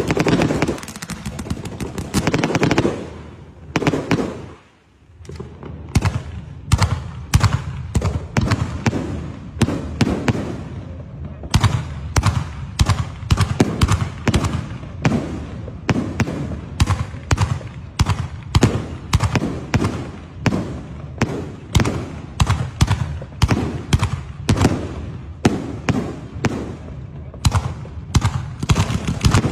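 Fireworks going off: a dense crackle of a ground fountain and shell bursts at first, a brief lull about four seconds in, then a steady run of sharp bangs about two a second as a multi-shot sky-shot cake fires shells into the sky.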